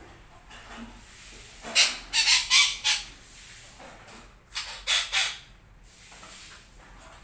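Betet parakeet calling in two bursts: about four loud notes close together near two seconds in, then three more around five seconds in.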